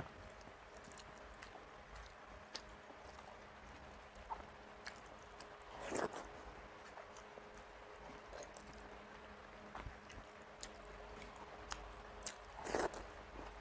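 Close-up eating sounds of rice and dal eaten by hand: faint wet squishing as the fingers mix it, with soft smacks and clicks of chewing. Two louder mouthfuls come about six seconds in and near the end, over a faint steady hum.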